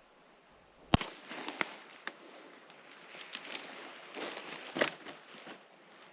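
Irregular crunching, crackling footsteps on dry, burned ground, with a sharp knock about a second in.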